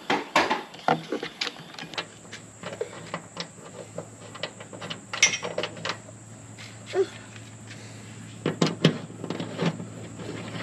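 Scattered clicks and knocks of a plastic towing mirror and its mounting hardware being handled and worked with a screwdriver on a car door. A faint steady low hum runs underneath from about two seconds in.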